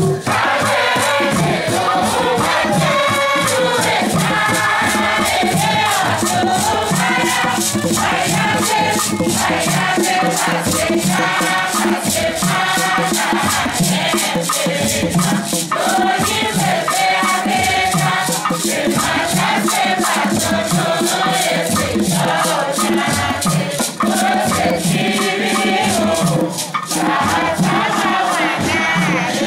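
Mixed choir of men and women singing a Tiv Sunday school song, backed by hand drums and a rattling shaker keeping a steady, fast beat.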